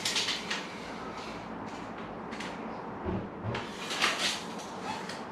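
Handling noises from work on a UPVC window frame: a few short scraping, rustling sounds, the longest about two thirds of the way through, with a couple of dull knocks around three seconds in.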